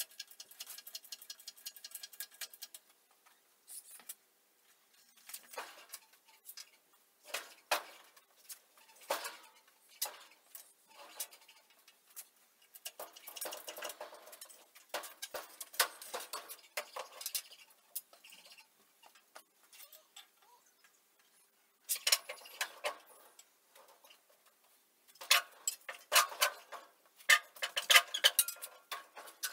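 Metal clinking, ticking and rattling from an engine crane's chain and lifting gear as a hanging Ford flathead V8 block is swung and lowered into a car chassis. It comes in runs with short pauses, a quick rattle of clicks at the start and the loudest clanks in the last several seconds.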